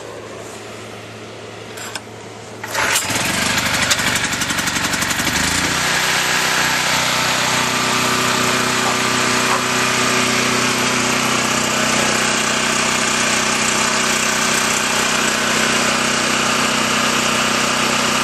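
A new portable gasoline generator's small four-stroke engine, pull-started cold on choke, catches on the first pull about three seconds in and then runs steadily, settling after a few seconds.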